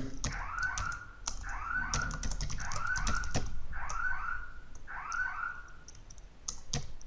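Computer keyboard keys clicking irregularly as a name is typed into a search box and then deleted. Behind the typing, a short rising-and-falling call repeats about once a second.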